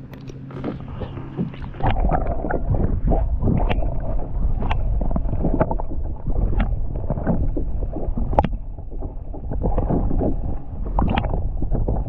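Water sloshing and gurgling, muffled through a camera microphone held under the lake surface from about two seconds in, with many scattered clicks and knocks.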